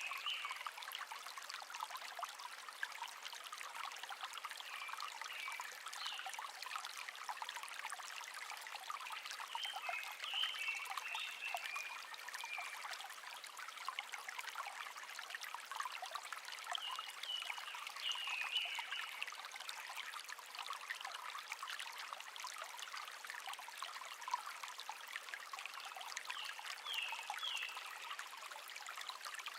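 A small stream babbling and trickling steadily, with short high phrases of wild birdsong coming and going every several seconds.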